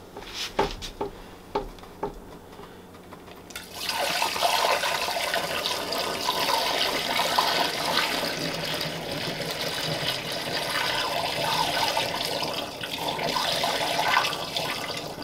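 A few knocks as the stainless steel stockpot is picked up, then, about three and a half seconds in, dandelion wine must pouring from the pot through a plastic funnel into a glass gallon jug: a steady splashing pour that lasts about ten seconds and eases near the end.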